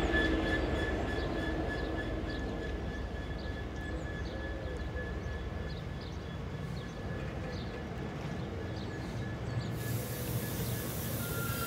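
Loaded aggregate wagons rolling past behind a Class 66 diesel freight locomotive, a steady rumble of wheels on rail, with the locomotive's two-stroke engine note fading in the first couple of seconds as it draws away. A high hiss comes in near the end.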